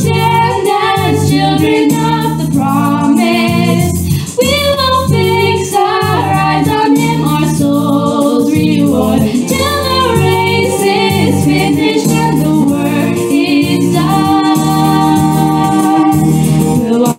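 Christian devotional song: voices singing a melody over instrumental backing with a steady bass.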